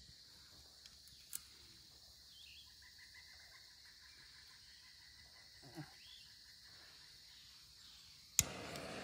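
Quiet woodland with faint bird chirps, a small click and a soft knock. Near the end a sharp click comes, and a steady background rumble starts again.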